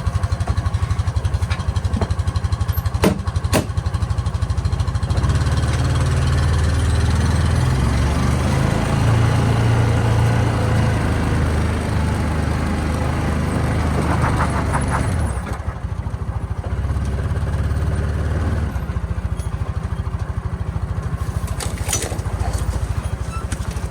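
Side-by-side UTV engine running steadily, working harder and louder from about five seconds in until about fifteen seconds, then easing back. A couple of sharp knocks come early on.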